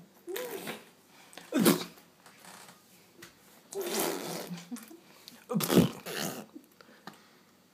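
A baby of about four months laughing and squealing in four short, breathy bursts, with quiet gaps between them.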